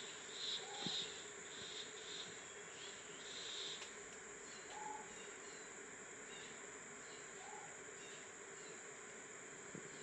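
Forest insects droning steadily at a high, even pitch, with a pulsing chirr over the first four seconds. A short faint low note sounds three times, and a soft knock comes about a second in.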